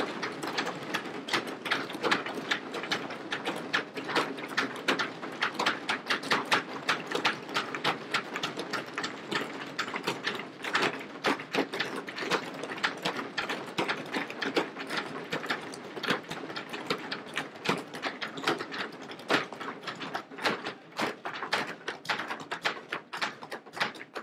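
Many legislators thumping their wooden desks in applause: a dense, irregular rattle of knocks, with louder separate knocks standing out near the end.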